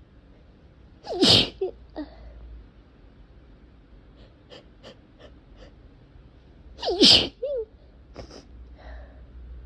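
A person sneezing twice, about six seconds apart, each sneeze a hard burst with a short voiced cry, and fainter short breaths and clicks between them: allergy sneezing brought on by cats.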